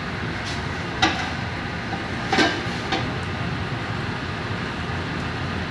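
Steady low rumble and hiss of a commercial kitchen, with a sharp click about a second in and a louder clack about two and a half seconds in followed by a lighter one, as a stainless gas range's burner is turned on and lit.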